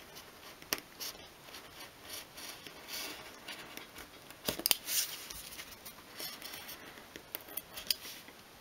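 Craft knife blade scoring along a line in a thin sheet of obeche wood, pass after pass: a run of light scratchy strokes with a few sharper clicks, the loudest about halfway through.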